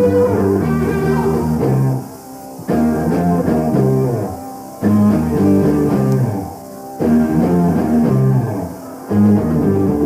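Hard rock band playing live, with electric guitar, bass and drums. They play a stop-start riff in phrases of about two seconds, each broken off by a short drop in level.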